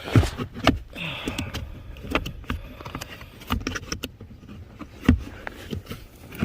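Scattered clicks, knocks and rattles of hard plastic and metal as the blower motor (squirrel-cage fan) assembly of a Ford F-150 is worked loose from its housing under the dash, with sharp knocks near the start and about five seconds in.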